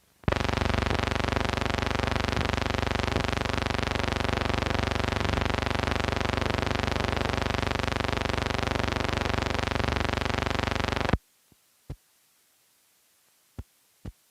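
A steady buzzing hum with many overtones, starting abruptly and cutting off suddenly after about eleven seconds, followed by a few sharp clicks and pops over faint hiss.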